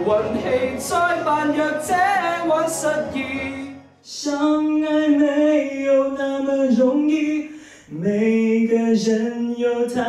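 Unaccompanied male voices singing into a handheld microphone: long held notes with vibrato. About four seconds in it cuts to a second singer, whose phrase breaks briefly near eight seconds before carrying on.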